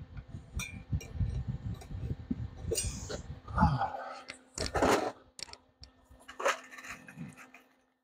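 Rubbing, handling noise for the first few seconds, then several sharp knocks and light clinks as wooden frames and boards are picked up and set down on a steel workbench.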